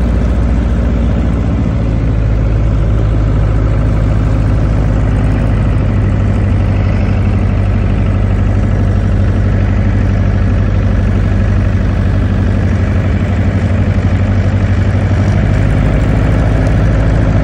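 Light aircraft's piston engine and propeller droning steadily at cruise power, heard from inside the cabin.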